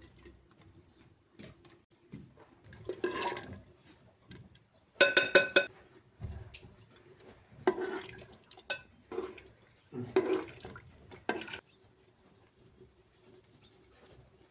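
Pots, dishes and utensils clinking and clattering in a series of separate knocks, with a little water; the loudest is a ringing clatter about five seconds in.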